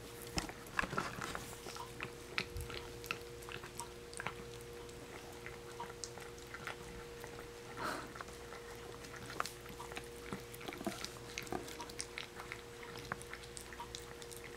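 Dachshund licking and chewing food from a small cup held in a hand: many quick, irregular wet smacks and clicks of tongue and teeth.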